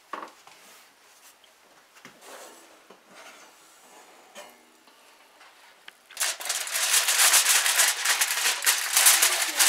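Aluminium foil crinkling loudly as it is peeled off a baked cake pan, starting about six seconds in. Before that, only a few faint knocks as the pan is lifted out of the oven.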